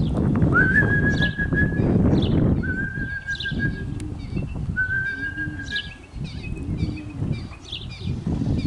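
Small birds chirping repeatedly, with three long, level whistled notes, each a little over a second, over a low rumble.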